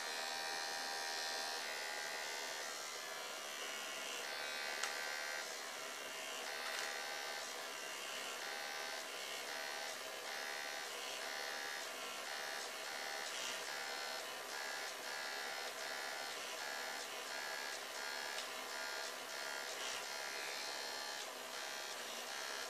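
Handheld electric eraser running with a steady small-motor buzz, its harder rubber tip touched to painted card to rub out dots of colour. The sound wavers slightly as the tip is pressed on and lifted.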